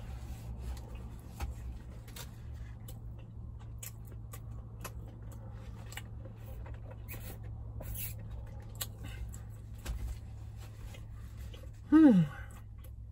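Close-up eating sounds: chewing with small wet mouth clicks and a sip of ice water through a straw, over a steady low hum. Near the end, a short falling 'mmm' from the eater.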